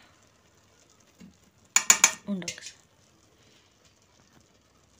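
Serving spoon knocking against the aluminium pot of an electric rice cooker: a few quick clinks close together about two seconds in.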